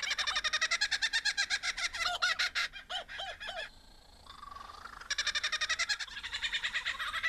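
Laughing kookaburra call: long runs of rapid, chattering notes. It breaks off about three and a half seconds in and starts again about a second and a half later.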